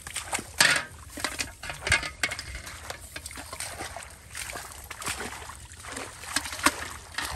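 A live fish flapping inside an aluminium cooking pot: irregular clinks and knocks on the metal, with some water sloshing and swishing through wet grass.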